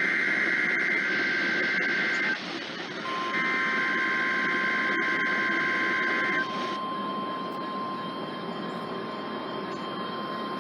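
NOAA Weather Radio test over radio static: two long bursts of the SAME digital header, a shrill two-tone data warble, then the steady 1050 Hz weather-radio warning alarm tone starting about three seconds in and overlapping the second burst. This is the weekly test of the warning alarm device.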